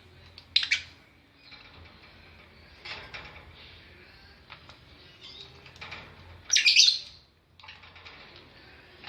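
Lovebirds chirping and chattering, with two loud, shrill calls, one about half a second in and one near the end, over softer twittering.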